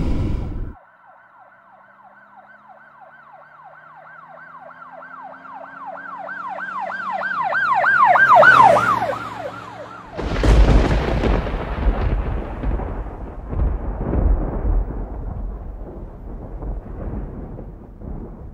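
A siren wailing in quick rising-and-falling sweeps, growing louder and dropping in pitch as it passes. About ten seconds in, a loud deep rumble with irregular cracks cuts in and slowly fades.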